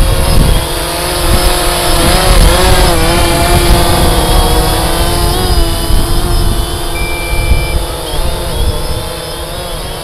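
DJI Phantom 3 Standard quadcopter hovering close by, its propellers humming with a pitch that wavers up and down as it holds position and shifts, with wind rumbling on the microphone. A short high beep, the low-battery warning, sounds about seven seconds in.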